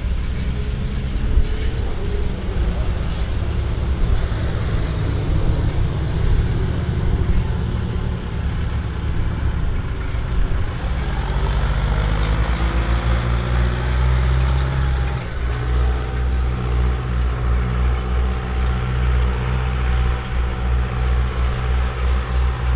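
Ferguson tractor with a four-wheel-drive Selena conversion, its engine running steadily while pulling a disc plough. About halfway through, the engine speed rises over a couple of seconds, then holds at the higher revs.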